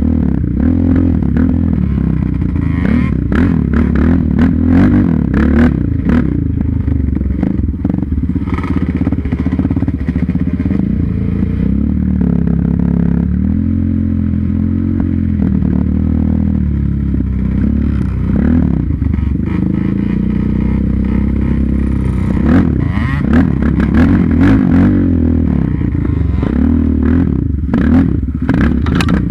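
Yamaha Raptor 700 quad's single-cylinder four-stroke engine running under riding load, its revs rising and falling with the throttle. Frequent knocks and rattles come from the machine jolting over the rough trail.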